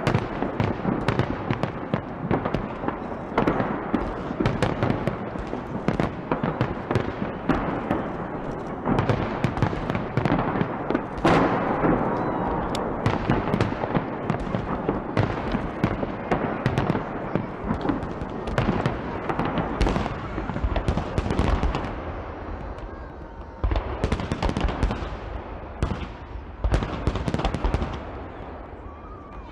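Fireworks display: aerial shells bursting one after another in quick succession, a dense run of bangs and crackle that eases off for a moment near the end.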